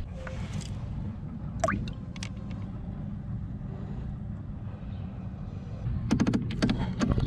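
Steady low rumble around a boat's livewell, with a quick run of sharp knocks and clatter near the end as the hinged livewell lid and fittings are handled.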